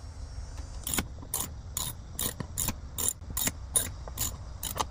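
Hand socket ratchet wrench clicking about ten times at a steady pace, roughly two to three clicks a second, starting about a second in, as it backs out a 10 mm bolt.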